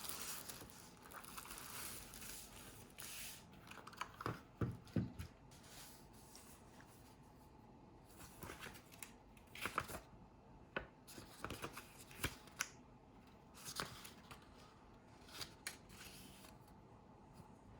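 Packaging and contents of a new mechanical keyboard being unpacked and handled: scattered light clicks, taps and brief rustles at irregular intervals.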